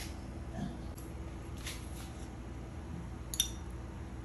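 A single light clink of metal chopsticks against a ceramic plate about three seconds in, with a short ringing after it, over a steady low background hum.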